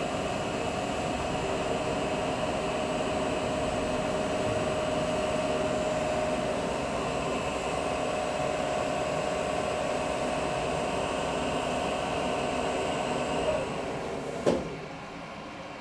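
Small Chinese CNC lathe running, its spindle turning an aluminium workpiece with a steady hum and a held whine. Near the end the hum drops and there is a single clunk as the part program finishes and the machine shuts down.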